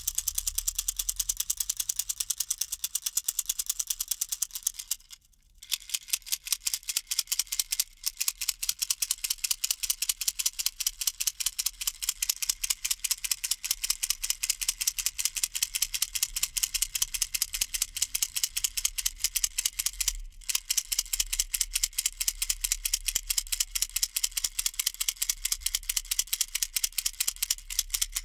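A baby rattle shaken rapidly and evenly, producing a fast run of bright, crisp clicks. About five seconds in it stops for roughly a second, and it breaks again very briefly around twenty seconds in.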